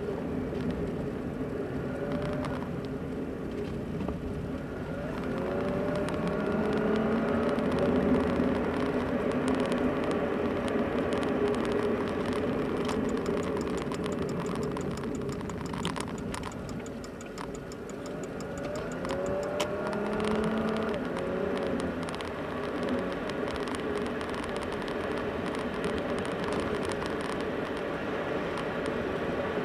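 Car driving, heard from inside the cabin: steady road noise and engine hum, with the engine note rising and falling a few times as the car speeds up and slows.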